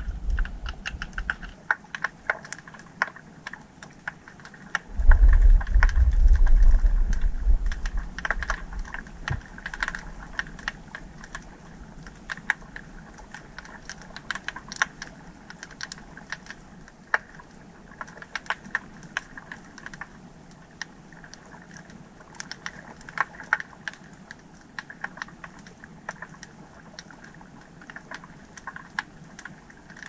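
Small earthquakes heard underwater on a hydrophone: the deep rumble of a magnitude 1.3 tremor fading out in the first second or so, then a second, louder deep rumble about five seconds in that lasts around three seconds. A constant crackle of sharp underwater clicks runs throughout.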